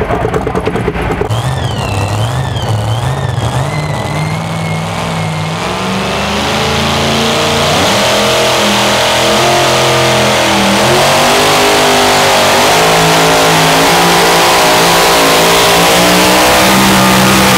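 Pulling engines under load. For the first few seconds an engine runs with a high warbling whistle over it. From about six seconds in, a supercharged engine in a super modified two-wheel-drive pulling truck revs up and then runs loud and steady at full throttle as it pulls the sled.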